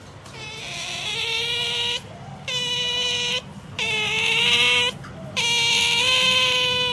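Pet otter's pamper noise: four long, high-pitched calls in a row, each lasting about one to two seconds with short pauses between.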